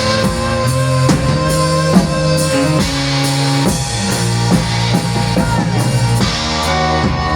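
Live folk-rock band playing an instrumental passage with no singing: a drum kit keeps a steady beat under guitar and sustained pitched notes.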